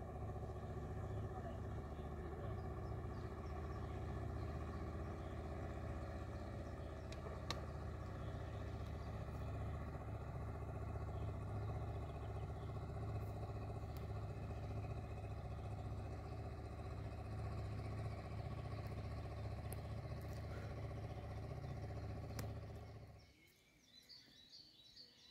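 Small outboard motor pushing an inflatable boat across the water, running steadily with an even low hum. It stops abruptly near the end.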